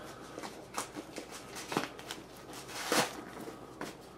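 Soft protective wrap on a new iMac rustling and crinkling as hands work it loose, with a couple of sharper rustles about two and three seconds in.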